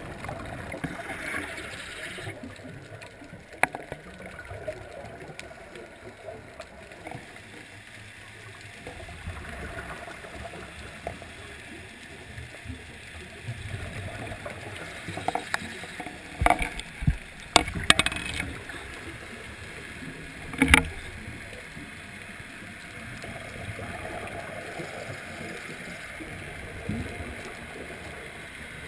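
Underwater sound of a scuba dive: the diver's regulator breathing and rushing, gurgling exhaust bubbles, with a few sharp clicks and knocks, a cluster of them about two thirds of the way through.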